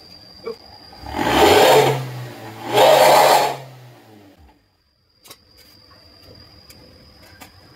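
Toyota Avanza Veloz automatic's exhaust, fitted with a bolt-on snoring ('ngorok') insert, revved in two quick blips about one and three seconds in, giving a raspy, snoring note that drops back to idle. The engine then idles steadily, with a brief gap of silence in the middle.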